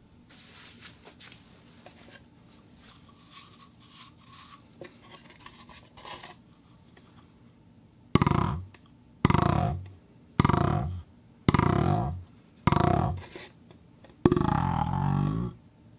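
A plastic ball against a wooden box, first faint light ticks and scratches, then about halfway in six loud resonant runs in quick succession. Each starts sharply and dies away over about a second, and the last one lasts longer.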